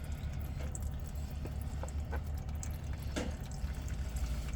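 Automatic transmission fluid dripping and trickling from the removed spin-on filter. There are a few light clicks and ticks throughout, the most distinct about three seconds in, over a steady low hum.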